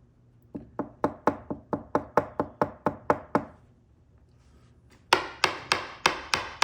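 1959 Mercury ignition lock cylinder being knocked repeatedly against a hard surface to shake loose a tumbler. The light, sharp knocks come about four a second in two runs with a pause between them, and the second run is brighter.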